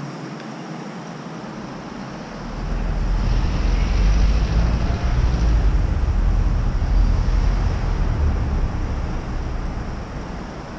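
A motor vehicle's engine rumble, deep and low, swelling about two seconds in, staying loud for several seconds, then fading near the end.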